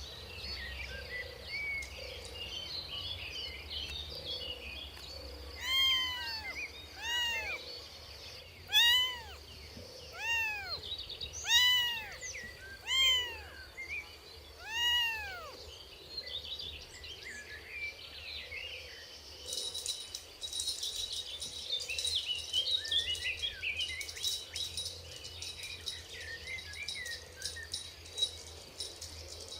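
A kitten meowing about seven times in a row, each meow a high call that rises and falls. Small birds chirp throughout, and from about two-thirds of the way in a denser high chirping and hiss of birds and insects takes over.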